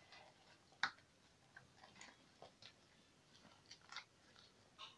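Faint handling noise from a makeup brush roll being unrolled: soft rustles of the case and scattered small clicks, the sharpest a little under a second in.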